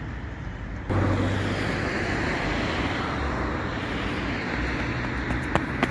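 Steady outdoor rush of road traffic, which gets louder about a second in, with a couple of short clicks near the end.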